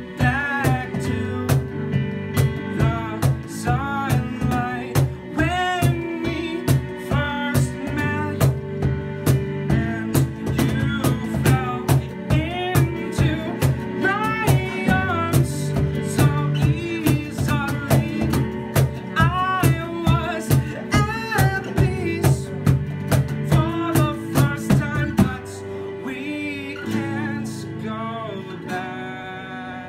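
Live acoustic band: a man singing over strummed acoustic guitar, Korg keyboard piano and a cajon keeping a steady beat. About 25 seconds in, the beat and the low notes drop out, leaving a quieter passage.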